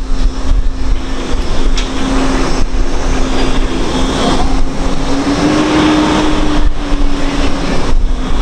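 Mobile crane's engine running as it hoists a steel skip, a steady hum that rises a little in pitch about halfway through and settles back, over a heavy low rumble.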